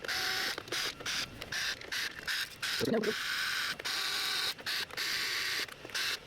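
Small hand tool working on a PS5's plastic internals during disassembly: a scratchy scraping and creaking that keeps stopping and starting in short, irregular spells.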